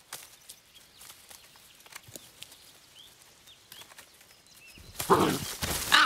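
Young animals padding over dry forest leaf litter, with scattered faint crackles and twig snaps and a few faint bird chirps. About five seconds in, a sudden loud scuffle as they scramble and tumble through the leaves.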